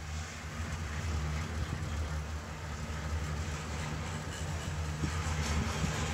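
An engine or motor running steadily, a low even hum under a rushing hiss.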